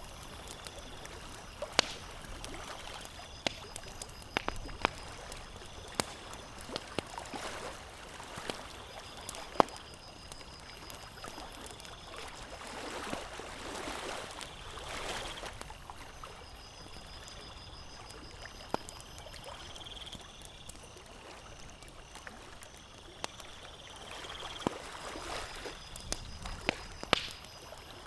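Campfire crackling with scattered sharp pops, over lake water lapping and sloshing in slow swells. A faint, high, pulsed chirping comes and goes in the background.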